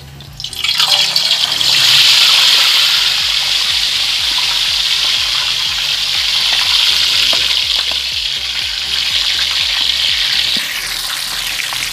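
A slab of pork belly for lechon kawali going into hot oil in an aluminium wok: the oil breaks into a loud sizzle about a second in and keeps frying at a steady hiss, easing slightly near the end. This is the first deep-fry of the pork.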